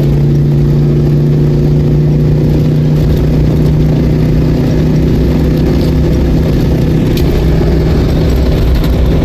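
Ford Bronco II engine running steadily under load while driving, holding one pitch in gear without upshifting: the sticky, late shift that the owner is testing for.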